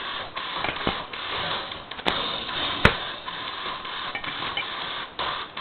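Brinks aluminium-body padlocks and their keys being handled and worked, with light metallic scraping and small clicks, and one sharp click a little under three seconds in.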